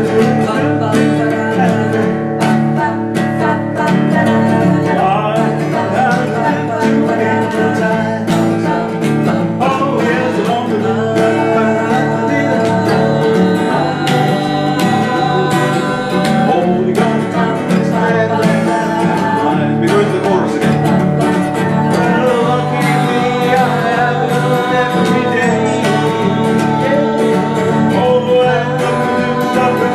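Acoustic guitar strummed steadily while two or more voices sing along together.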